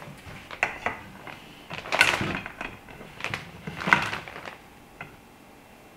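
Knocks and rustling from handling a clamshell reflector's tensioning rods, poles and fabric during assembly, several short handling noises with the loudest about two and four seconds in.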